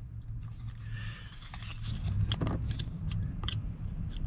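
Light clicks and taps of a metal cigar lighter socket being worked in its plastic bracket, with a screwdriver pushed into the socket near the end, over a steady low background rumble.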